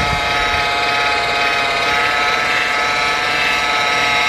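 Small electric rotary polisher with a 3-inch foam polishing pad, running at a slow steady speed and giving a steady motor whine while it buffs sanding scratches out of the clear coat on a painted wheel.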